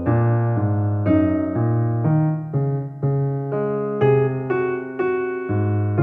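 Background piano music: chords and notes struck at an even pace of about two a second, each ringing and fading.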